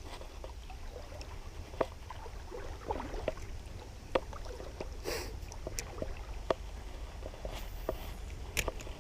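Creek water sloshing with scattered small splashes and ticks, and a couple of brief splashy hisses, over a steady low rumble.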